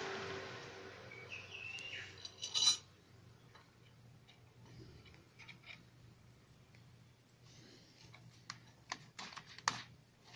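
Light metallic handling clicks at a cordless drill's keyless chuck and the fixture in front of it as a steel pin is fitted: a steady noise fades over the first two seconds, a sharp clatter comes about two and a half seconds in, and a run of small clicks follows near the end.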